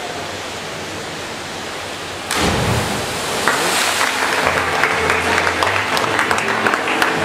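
Steady hiss of a large indoor pool hall, then about two seconds in a sudden jump to a louder sound, followed by spectators clapping and cheering as the synchronised divers enter the water from the 10 m platform.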